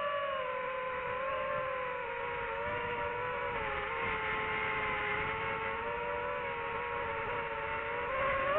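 DJI FPV drone's motors and propellers whining steadily, the pitch wavering a little with throttle, then starting to rise near the end as it powers up.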